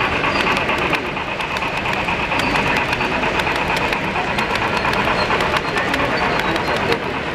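Model train of hopper cars rolling past close by, a steady rolling rush of metal wheels on rail with many quick clicks as the wheels cross rail joints.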